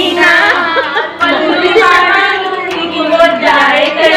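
Several women singing and calling out together, with scattered hand claps.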